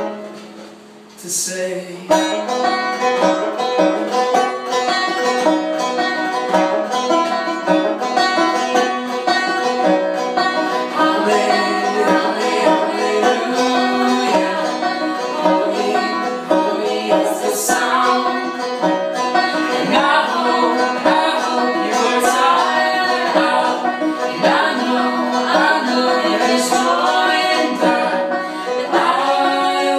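Resonator banjo being picked, with a brief lull in the first couple of seconds before the playing picks up again. A man and a woman sing along with it later on.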